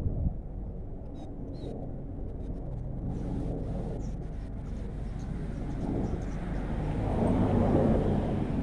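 A vehicle engine running with a steady low rumble, getting louder about seven seconds in, with a few faint ticks.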